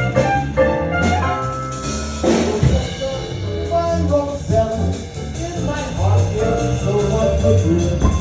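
Live New Orleans jazz band playing: brass led by trumpet over drum kit and bass, with a steady beat.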